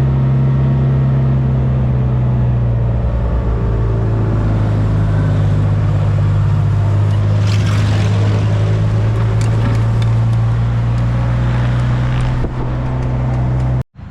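A vehicle engine runs loudly and steadily at a constant pitch, as when driving across the farm. There are a few faint rattles or knocks about halfway through, and the engine note dips briefly near the end.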